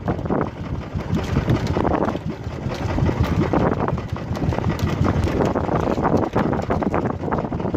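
Strong wind buffeting the microphone in uneven gusts, with a low rumble, on an open boat at sea.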